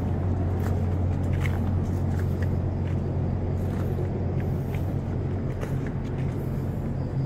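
A steady low machine hum at an unchanging pitch, with a few faint short ticks over it.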